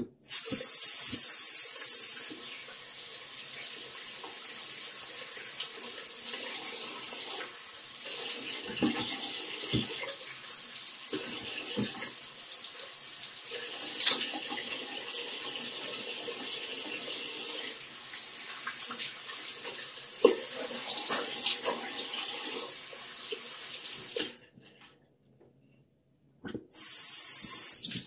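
Tap running into a sink while hands splash water to rinse a face. The flow is stronger for the first two seconds, then steady with scattered splashes. It stops about four seconds before the end and comes back on briefly at the very end.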